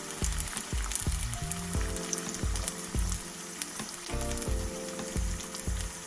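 Rice tortilla triangles sizzling and crackling in shallow oil in a nonstick skillet. Background music with a steady beat plays alongside.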